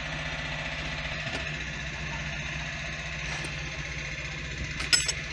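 Roadworks machinery running steadily as a low engine hum, with a brief click near the end.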